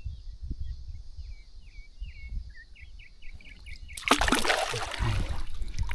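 Faint series of short bird chirps over a low rumble, then about four seconds in a sudden burst of water splashing close by as a peacock bass is let go by hand in the water.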